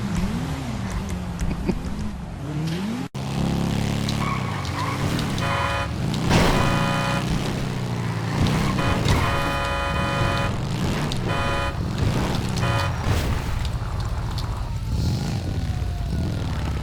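A car horn, the one called the Big Mac, honks in several long blasts, mostly between about six and twelve seconds in, over a car engine revving up and down. Near the end a siren starts to sweep.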